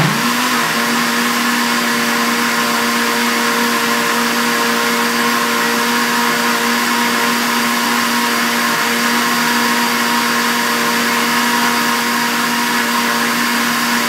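Electric kitchen blender spinning up at the start, then running at a steady high speed, churning an oily homemade soap mixture of oil, bleach, detergent and powdered soap.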